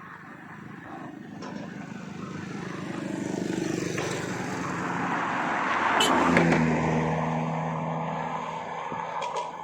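A motor engine passing: it grows louder to a peak about six seconds in, then eases off to a steady hum.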